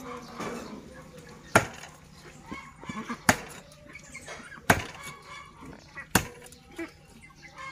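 Cleaver chopping frogs into pieces on a thick wooden chopping block: four sharp chops about a second and a half apart.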